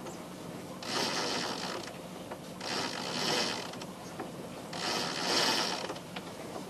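A sailing yacht's winch and rope at work as a line, likely the genoa sheet, is hauled in. There are three strokes of about a second each, roughly two seconds apart.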